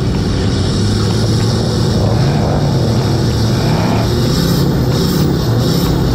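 Mud-bogging truck's engine running hard, its pitch rising and falling as it is revved up and down.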